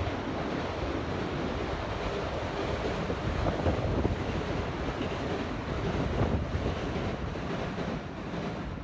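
Wind buffeting the phone's microphone, a steady rushing noise with uneven low rumbling gusts.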